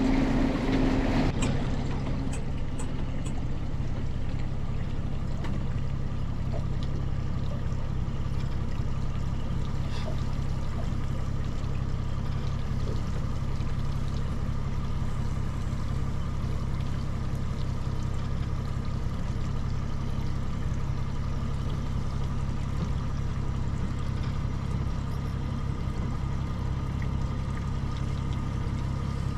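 Honda outboard motor running steadily at trolling speed, an even low hum, with water washing along the boat's hull.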